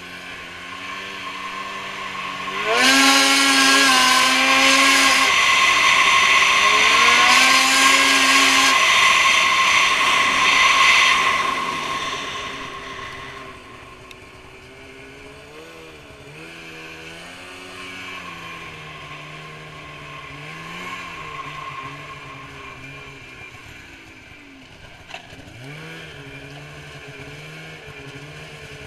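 Polaris Switchback Assault snowmobile's two-stroke engine breathing through a Bikeman Velocity aftermarket trail can, heard from on board. About three seconds in it is opened up hard and held loud for some eight seconds, with a brief dip in the middle, then eases back to lower, varying part-throttle running.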